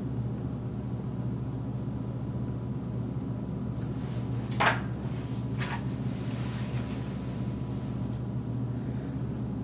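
A steady low hum, with two short rustles about halfway through, a second apart, the first louder.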